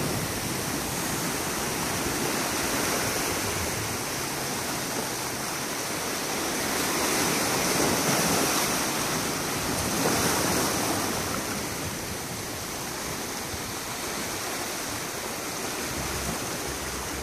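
Ocean surf: a steady rush of waves washing, swelling a little about seven and ten seconds in.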